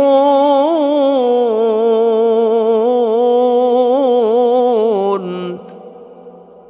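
A man's melodic Quran recitation (tilawah) in maqam Bayati at its high jawab al-jawab register, one long held phrase ornamented with quick pitch turns and slowly descending. The voice drops lower and stops about five and a half seconds in, leaving a fading echo.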